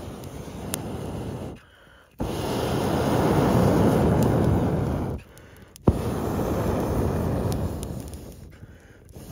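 Breath blown hard through a telescopic metal blow pipe onto glowing embers: three long, steady blows with short pauses between them for breath, to fan a reluctant ember bed of frozen wood into flame. Faint crackles come from the fire.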